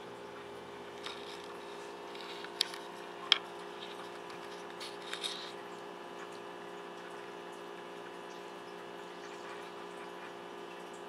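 A few sharp clicks and knocks, loudest twice about two and a half and three seconds in, from an ice cube being batted by a cat and skittering on a hard surface. Behind them runs a steady hum from an appliance or pump.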